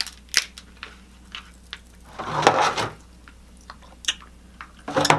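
Close-up eating sounds of king crab: sharp clicks and cracks of the shell being picked apart, with a longer stretch of wet smacking around the middle and more clicks near the end.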